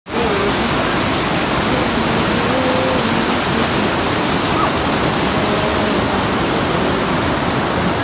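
Fast mountain river rushing in white water over boulders: a steady, loud rush.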